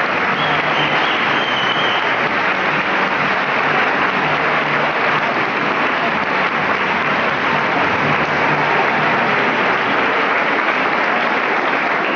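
Audience applauding steadily: dense, continuous clapping from a large crowd.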